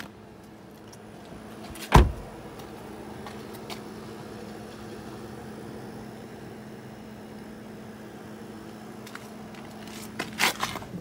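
A Honda car door shuts with a single heavy thump about two seconds in. A steady low hum runs underneath, and a quick series of clicks and knocks comes near the end.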